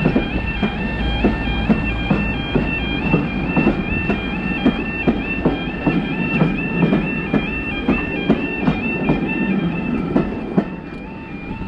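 A railway level crossing warning alarm sounds as a steady two-tone yelp, switching between two pitches several times a second. Under it a train passes, with a low rumble and regular clicks of wheels over rail joints about twice a second.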